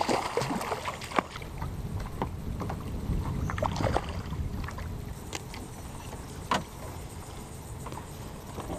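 A hooked snook splashing and thrashing at the surface beside a kayak as it is played in. A few sharp knocks are scattered through over a steady low rumble.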